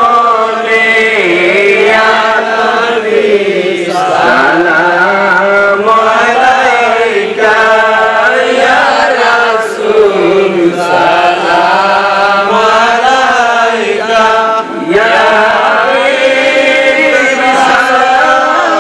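A man singing a Bengali devotional song in praise of the Prophet (a gojol), solo voice in long, drawn-out, wavering notes with short breaks between phrases.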